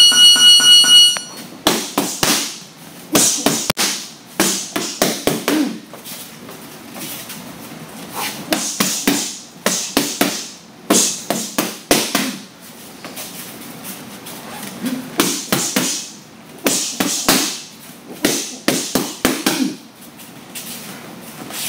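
Boxing gloves smacking focus mitts in quick bursts of several punches, combination after combination, with short pauses between. A high electronic beep pulses for about the first second.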